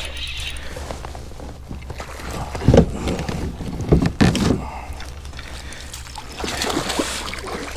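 A hooked bass splashing at the surface beside a kayak while a landing net is dipped into the water, with a few loud splashes and thumps about three and four seconds in.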